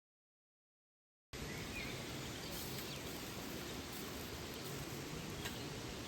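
Dead silence for about the first second, then the steady rush of a waterfall's flowing water.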